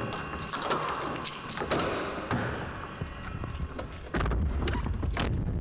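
Key ring jangling and clicking in a car's door lock as the door is unlocked and opened, followed by quieter handling and clatter. About four seconds in, a steady low hum starts suddenly, with a sharp knock a second later.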